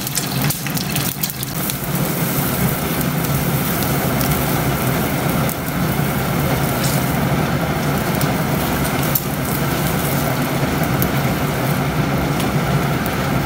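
A paratha sizzles in oil in a non-stick frying pan over gas burners, with the steady rushing of the burner flames underneath. A few clicks and scrapes come from the metal slotted spatula against the pan, mostly in the first two seconds.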